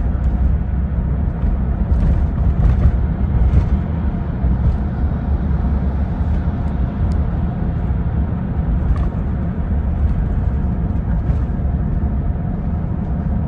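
Moving car: a loud, steady low rumble of road and wind noise.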